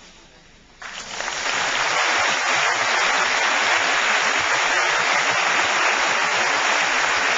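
Audience applauding: the clapping breaks out about a second in, swells quickly and then holds steady and loud.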